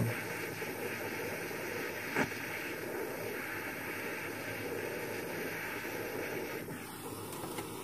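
Small gas soldering torch with a direct cone flame, hissing steadily as it heats a silver-solder joint on an orthodontic appliance. There is a single faint tick about two seconds in, and the hiss turns slightly duller near the end.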